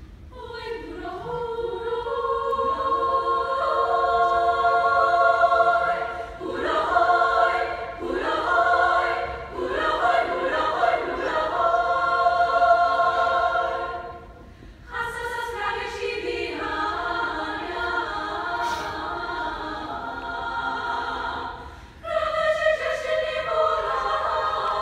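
Women's vocal ensemble singing a cappella in close harmony, in phrases broken by short breaths about 6, 14 and 22 seconds in, with rising swoops in pitch between about 6 and 10 seconds in.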